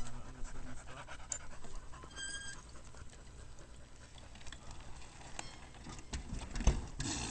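Heavy panting breaths close to the microphone, over the rustle of mountain bike tyres on dirt, with a short squeak about two seconds in. Near the end a deep thump as the bike comes down on a wooden plank.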